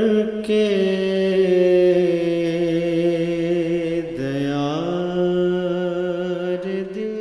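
Urdu naat sung in devotional style: a voice holding long, drawn-out notes. One phrase ends about four seconds in and the next rises into another sustained note.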